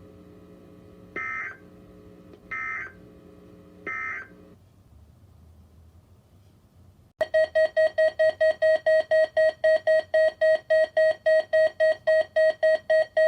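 Three short warbling data bursts of the Emergency Alert System end-of-message code from a NOAA Weather Radio broadcast, about a second and a half apart, over a low hum. The hum then drops out, and about seven seconds in a loud electronic alert beep starts, pulsing about five times a second.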